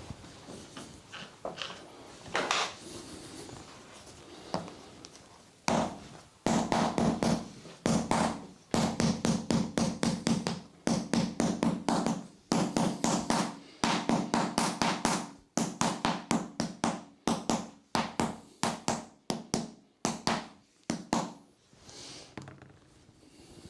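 Rapid percussive strikes on a person's body during a chiropractic and massage session, several a second, in runs of one to two seconds with brief breaks. They begin about six seconds in after a few faint knocks and stop shortly before the end.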